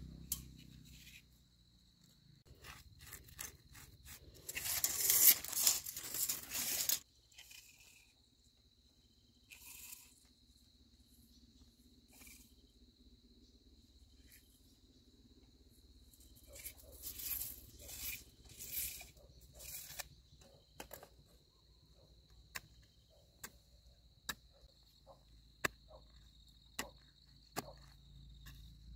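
Steady insect chirring in the background, with work and handling noises over it. A loud noisy burst lasts about two seconds from about five seconds in and cuts off suddenly. Scattered crackling follows, then sharp clicks about once a second near the end.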